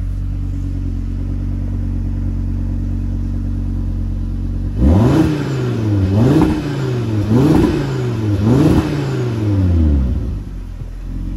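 Audi RS3's 2.5-litre turbocharged five-cylinder engine, breathing through the RS sports exhaust in performance mode, idling steadily, then blipped four times in quick succession about five seconds in, each rev rising and falling back, before settling back to idle near the end.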